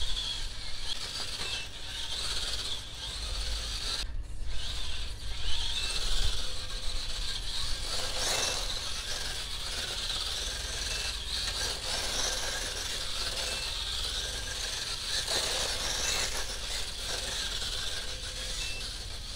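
Electric motor and gears of a scale RC rock crawler whirring as it crawls, with louder surges about eight and fifteen seconds in. A short high beep repeats about every two and a half seconds.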